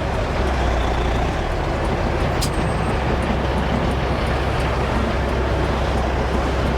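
Dump truck's diesel engine running steadily, with a single sharp click about two and a half seconds in.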